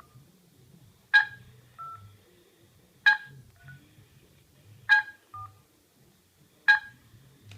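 A password keyed in on a mobile phone calling a GSM alarm unit: four loud short beeps about two seconds apart, with a brief, quieter touch-tone between each pair.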